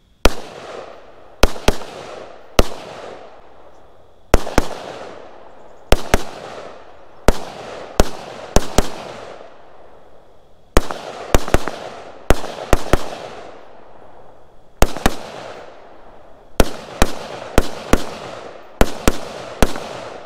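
An AR-style semi-automatic rifle firing about two dozen rapid shots in quick groups of two to four, each crack trailing off in a long echo.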